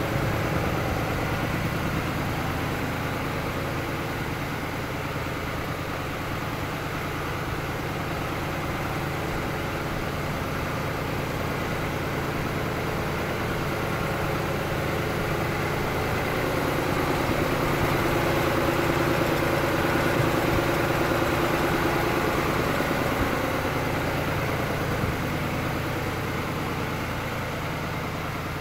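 Tractor engine running steadily at low speed while it pulls an inter-row weeder through the soil. It grows a little louder past the middle, then eases back slightly.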